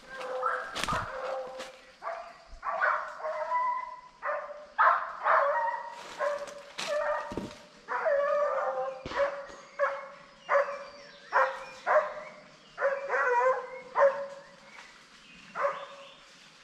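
Boar-hunting dogs barking and baying, a run of about twenty calls at uneven spacing, several drawn out into longer bays: the dogs giving voice as they run a wild boar's trail.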